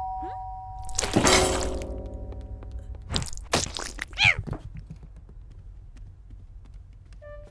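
A loud crash about a second in, then several lighter knocks and clatters, all over held musical notes.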